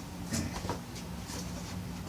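A few light knocks from the sheet-metal tool chest and cart as the chest is handled into the rails, over a low steady hum.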